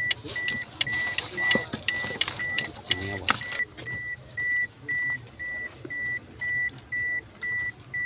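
Car's hazard-light indicator tone beeping steadily, about two short high beeps a second. Clicks and rustling of handling wires sound over it in the first few seconds.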